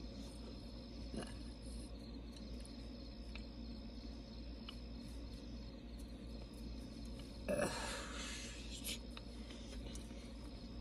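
Quiet car-cabin room tone: a low steady rumble with a faint steady high tone over it, a few faint clicks, and a brief rustle about seven and a half seconds in.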